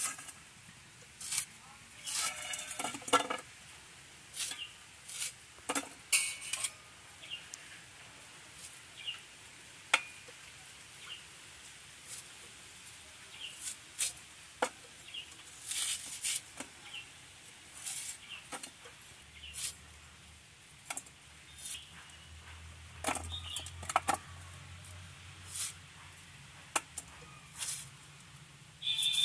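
Irregular clicks and knocks as peeled kham aloo (greater yam) is sliced into chunks on a boti blade and the pieces drop into a stainless steel pot.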